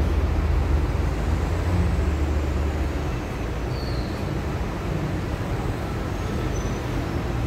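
A large engine running steadily with a low rumble, a little stronger over the first three seconds.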